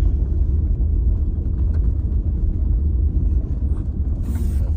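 Steady low rumble inside the cab of a Cummins diesel pickup driving on a gravel road: engine drone mixed with tyre and road noise.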